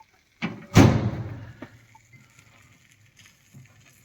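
Kitchenware being handled: a light knock, then a loud thud that dies away over about a second, and a faint click after it.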